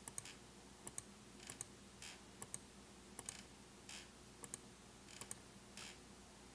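A series of faint computer mouse clicks, several coming as quick doubles, about one every half second to second, as menu items are picked over and over.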